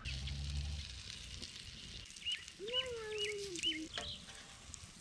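Birds calling outdoors: a run of four quick, hooked chirps about halfway through, over a lower drawn-out call that slowly falls. A short low rumble comes right at the start.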